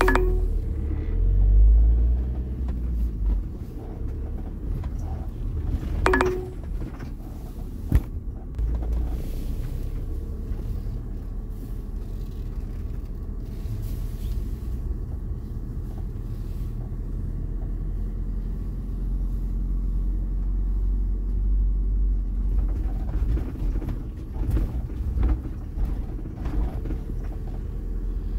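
Camper van driving slowly, its engine and road rumble heard from inside the cab. Two brief tones, one near the start and one about six seconds in, and a sharp click about eight seconds in.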